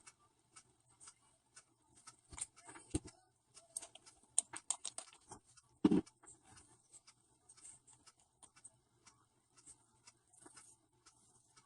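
Faint, scattered small clicks and taps of small objects being handled, bunched together between two and six seconds in, the loudest tap about six seconds in.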